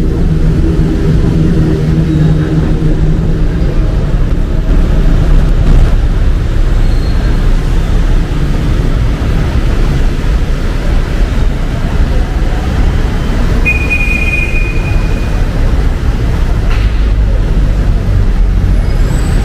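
City street traffic, a steady low rumble of passing vehicles, with one engine's hum standing out for the first few seconds. There is a brief high-pitched squeal about fourteen seconds in.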